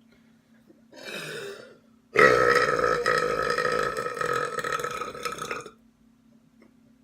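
A person burping: a brief, softer sound about a second in, then a loud, long burp lasting about three and a half seconds that ends abruptly.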